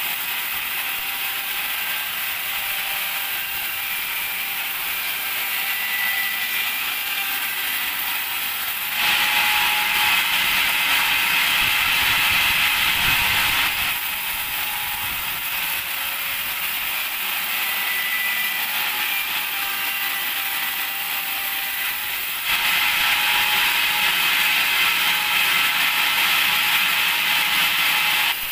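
Large band sawmill running while sawing teak logs, with a steady mechanical clatter. It grows louder and brighter for two stretches of about five seconds each, the second starting about two-thirds of the way in.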